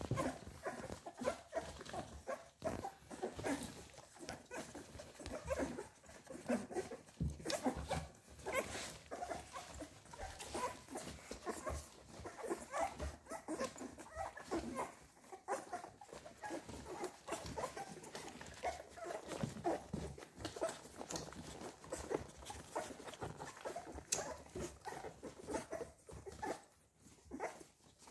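American Staffordshire Terrier puppies nursing: a steady patter of wet suckling and smacking clicks with many short squeaks and whimpers as they jostle for the mother's teats.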